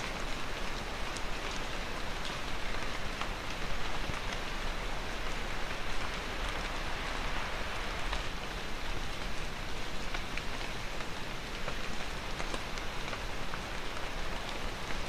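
Steady rain falling, an even hiss with scattered drop ticks on hard surfaces.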